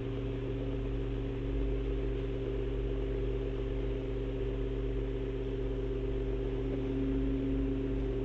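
A steady low drone of several held tones over a faint hiss, unchanging except for one tone swelling slightly near the end.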